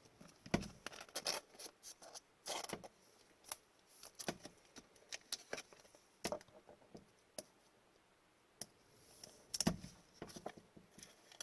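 Hockey trading cards being handled and flipped through by hand: irregular light clicks and soft rustles of card stock.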